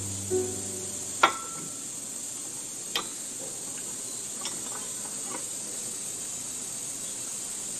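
Outdoor forest ambience: a steady high-pitched hiss, broken by a few short sharp ticks or chirps, the loudest about a second in.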